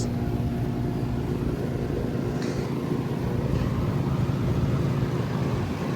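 Heavily rusted Trane XR14 central air conditioner's outdoor unit running, its scroll compressor and condenser fan making a steady hum.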